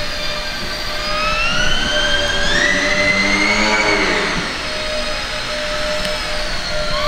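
Electric motor and propeller of a small indoor RC aerobatic foam plane whining in flight. The pitch climbs as the throttle is opened, peaks about halfway, then drops back. It climbs again near the end.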